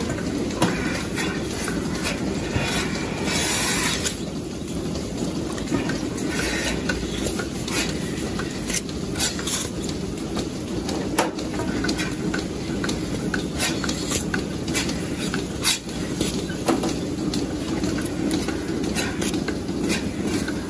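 Milking-parlour machinery running steadily, with scattered clicks and clanks from the milking clusters and metal fittings, and a brief hiss about three seconds in.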